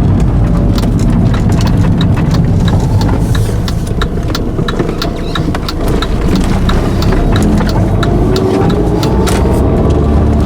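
Audi S3's 1.8-litre turbocharged four-cylinder engine running as the car drives, through the stock muffler, with many sharp ticks over the engine sound and the pitch rising slowly near the end as it accelerates.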